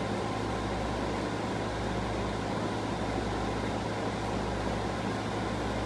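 Steady background room noise: a low hum under an even hiss, with no distinct events.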